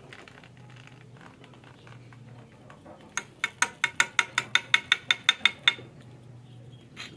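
A quick, even run of about a dozen sharp mechanical clicks, around five a second, starting about three seconds in and lasting some two and a half seconds.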